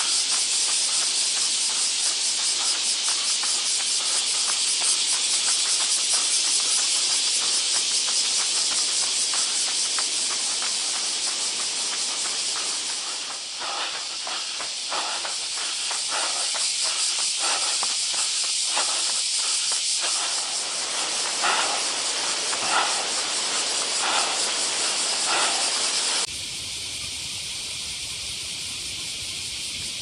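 A chorus of cicadas singing in a dense, steady, high-pitched drone. It drops a little in level near the end.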